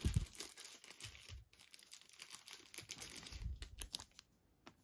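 Thin clear plastic card sleeve crinkling and rustling in the hands as a trading card is handled and slid into it: an irregular run of small crackles with a short lull about one and a half seconds in.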